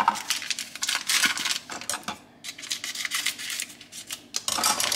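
A spoon stirring gelatin powder into hot water in a bowl, making rapid small clicks and scrapes against the bowl.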